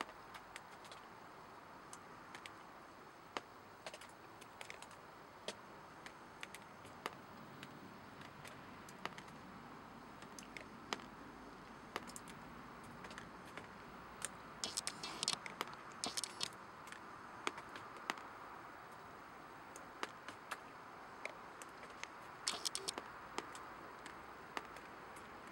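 Irregular small clicks and ticks over a faint steady hiss, with two short bursts of scratchy rustling, one about halfway through and one near the end.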